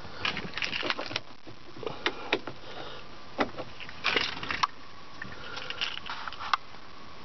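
Irregular light clicks and rustles of handling inside a parked car's cabin, with louder clusters about four seconds in and around six seconds. A faint steady hum comes in about halfway through.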